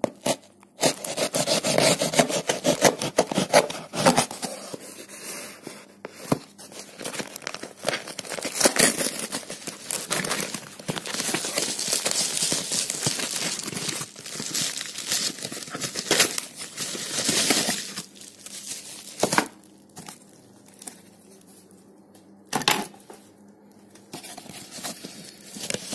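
Product packaging being torn and crinkled by hand: a long run of rustling, ripping and sharp clicks for about eighteen seconds, then only a few separate handling clicks.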